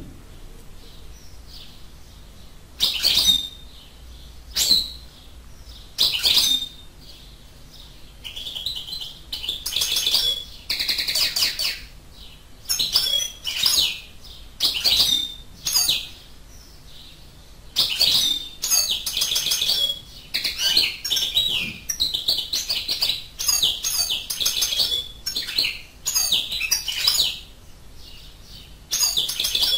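European goldfinch giving twittering calls in repeated short bursts of a second or so, with brief gaps between them and the bursts coming more closely in the second half.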